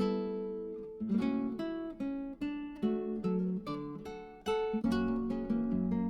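Background music of acoustic guitar, plucked and strummed, each chord fading before the next one.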